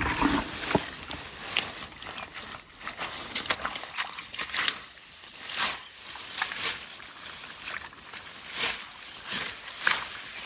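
Hands rummaging through wet grass and water, with irregular sloshing and rustling.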